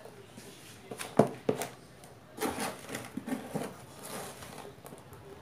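Potting soil and plant roots being worked apart by gloved hands, with rustling and crumbling of soil and two sharp knocks about a second in, then a run of shorter scrapes and taps.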